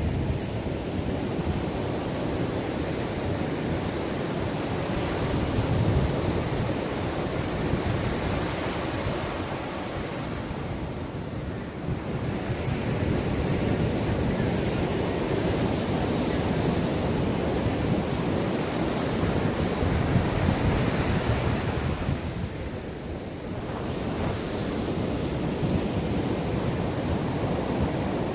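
Sea waves washing onto the shore in a continuous rushing surf that swells and eases, dipping briefly twice, with wind buffeting the microphone.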